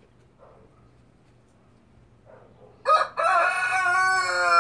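Rooster crowing once, loud, starting about three seconds in: a short first note, then one long call whose pitch sinks slightly toward the end.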